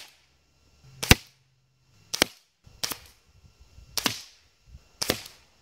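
Gamo Swarm Maxxim break-barrel air rifle shooting: five sharp cracks about a second apart.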